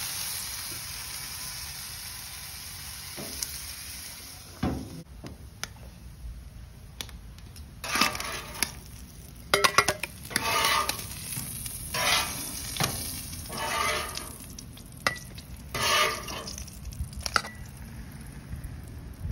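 Thick bologna slices sizzling on a gas flat-top griddle, the sizzle fading over the first few seconds, then a metal spatula scraping across the griddle and knocking against a stainless steel bowl as the slices are lifted off, about six short scrapes from about eight seconds in.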